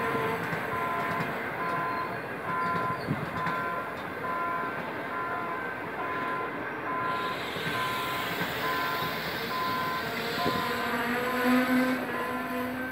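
Train of CNR passenger coaches rolling slowly past, with a repeating electronic warning beep sounding about one and a half times a second throughout. Near the end a low steady tone joins the rolling noise.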